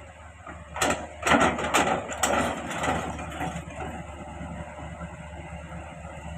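Excavator's engine running steadily, with a quick run of sharp knocks and scraping from about one to two and a half seconds in.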